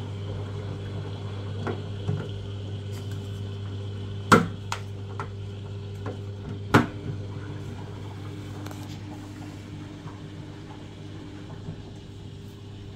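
A Samsung front-loading washing machine running with a steady low hum. Sharp plastic clicks come about four seconds and seven seconds in, the loudest sounds here, as the drain-filter access cover is snapped back into place, with a few lighter handling clicks around them.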